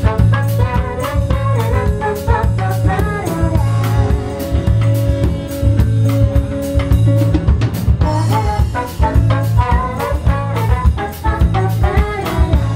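A live band playing: drum kit keeping a steady beat under a bass guitar line, with horns (saxophone and trombone) carrying the melody.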